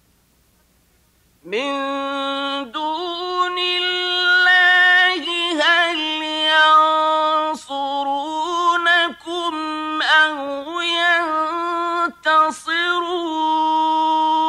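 A high male voice chanting Quran recitation in the melodic mujawwad style, with long held notes that waver and turn in ornaments. It starts about a second and a half in, with short breaks for breath.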